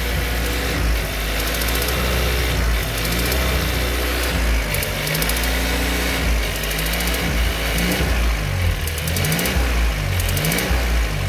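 Volkswagen Golf TSI turbocharged petrol engine running at idle with a fast, rhythmic ticking that sounds like a valve tick. The cause is a spark plug whose ceramic insulator has come loose.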